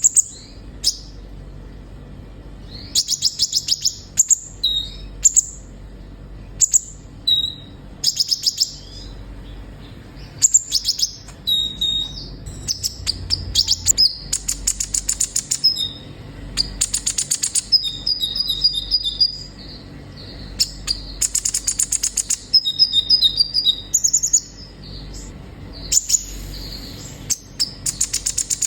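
Sunbird (the kolibri ninja of Indonesian bird-keepers) singing vigorously: repeated bursts of fast, high twittering trills separated by short pauses.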